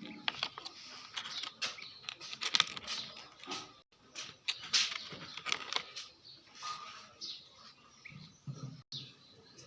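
Irregular clicks, taps and rustling of a small fitness-tracker box and its contents being handled and unpacked.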